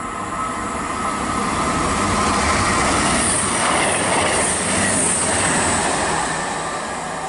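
CrossCountry Class 221 Super Voyager diesel-electric multiple unit passing through the station. Its rumble builds to a peak in the middle, with a high-pitched hiss, then fades away.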